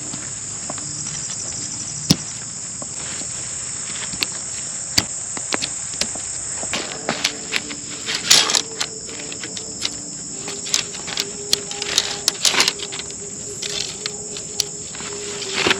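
A steady, high-pitched insect chorus with many irregular sharp taps and clicks over it; the taps come thickest about halfway through and again a few seconds later.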